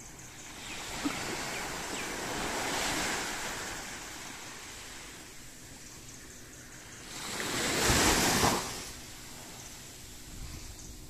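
Small waves washing up onto a sandy beach. Two surges of surf swell and fade, the second, about seven to nine seconds in, the louder.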